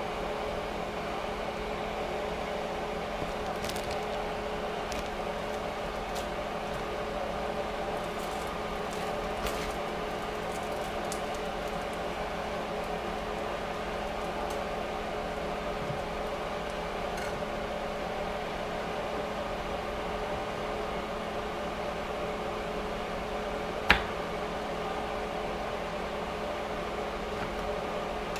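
Perch frying in a hot pan: faint crackles and pops over a steady mechanical hum, with one sharp click near the end.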